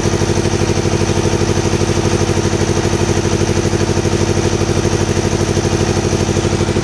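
Excavator's diesel engine idling steadily, with an even, rapid pulsing beat.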